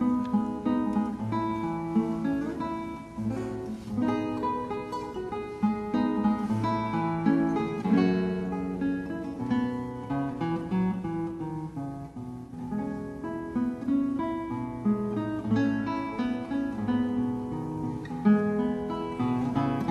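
Acoustic guitar music, a continuous run of plucked notes and chords.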